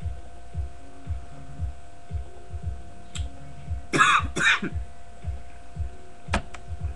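A person coughing twice in quick succession, over a steady electrical hum.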